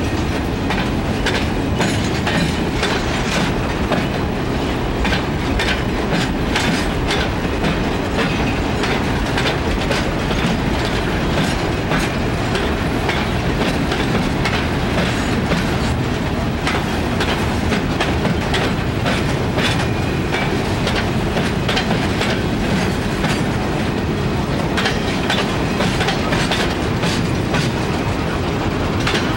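Freight train's boxcars and tank cars rolling past, a steady rumble with the wheels clicking over the rail joints.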